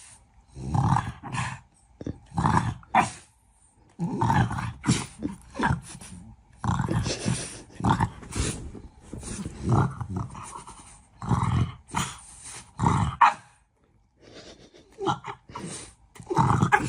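A dog vocalizing in a long series of short, irregular calls, with brief pauses between them.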